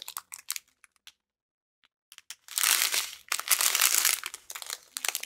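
Plastic crinkling from a strip of small zip bags of diamond-painting drills being handled. A few faint ticks come first, then a quiet second or so, then about three seconds of steady crinkling.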